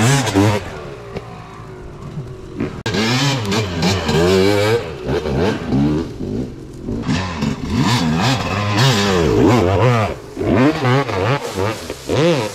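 Two-stroke dirt bike engines revving hard, the pitch rising and falling again and again as the throttle is blipped and opened while the bikes climb a rock ledge.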